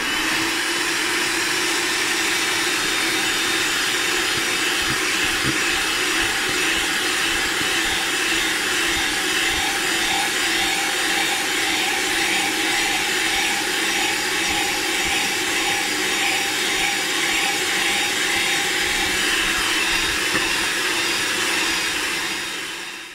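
Electric hand mixer running at a steady speed, its wire beaters whisking egg-and-sugar batter as cream is blended in; it cuts off near the end.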